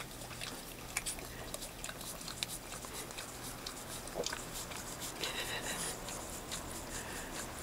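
Boston terrier licking yogurt out of a plastic cup held out to it: irregular wet licks and small clicks of tongue and muzzle against the cup, with a short squeak a little past the middle.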